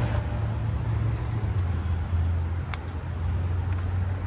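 Steady low rumble of city street traffic, with a faint click about two and a half seconds in.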